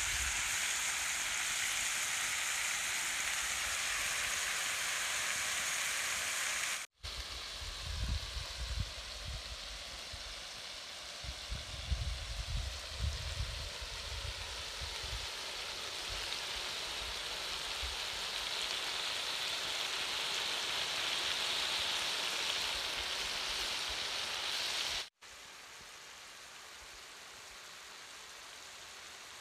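Chicken pieces in masala sizzling on a large iron tawa, a steady frying hiss. It cuts off abruptly twice, with some low bumps and rumbles after the first cut, and is fainter after the second.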